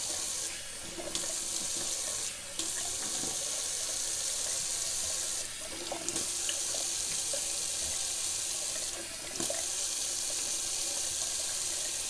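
Bathroom sink tap running in a steady rush while a face is rinsed in the stream. The sound dips briefly a few times.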